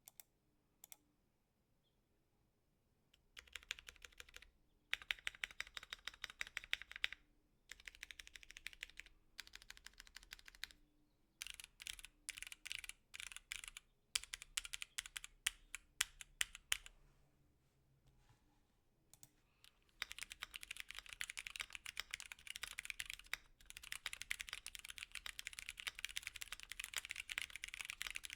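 Typing on a Voice65 mechanical keyboard with stock Gateron Brown tactile switches and PBT keycaps. It comes in bursts with short pauses and a few louder single keystrokes, then a lull with only a couple of clicks, and then steady, fast typing for the last several seconds.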